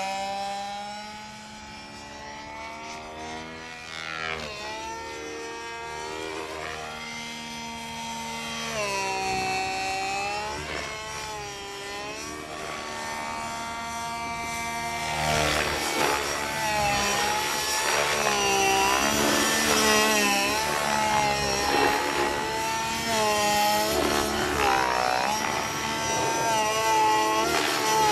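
Radio-controlled helicopter's HWC 29cc two-stroke gasoline engine and rotor blades in flight, the engine note rising and falling as the load changes. It is fainter at first, then louder from about halfway through, with quicker, wider swings in pitch.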